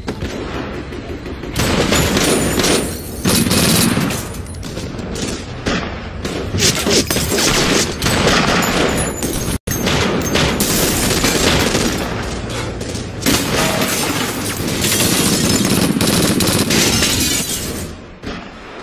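Heavy gunfire in a film shootout: many shots in quick succession with booming impacts, over a music score. The sound drops out for a moment about halfway through.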